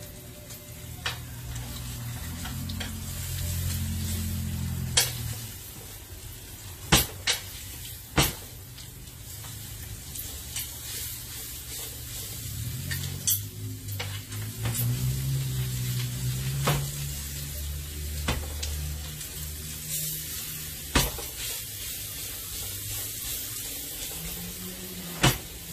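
Steaks searing in a hot carbon steel pan: a steady sizzle, with sharp clicks of a utensil against the pan every few seconds. A low engine rumble from cars revving outside rises and falls twice beneath it.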